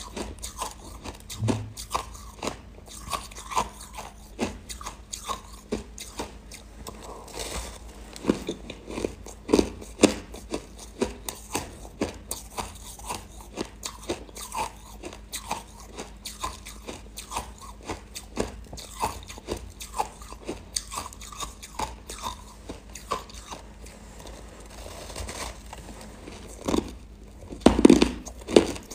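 Frozen buckwheat ice being bitten and chewed: a steady run of short, crisp crunches, one after another, with a louder burst of crunching near the end.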